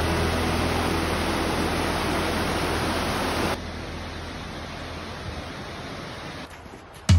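Steady rush of water from a creek cascading over boulders. About three and a half seconds in it cuts to a quieter, even rush from a tall waterfall, which fades near the end.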